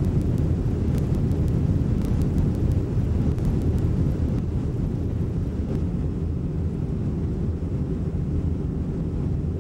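Cabin noise at the rear of a fully loaded Boeing 747-200 airliner at takeoff power: a steady low rumble of engines and airflow as the jet rotates and lifts off the runway, with faint cabin rattles in the first few seconds.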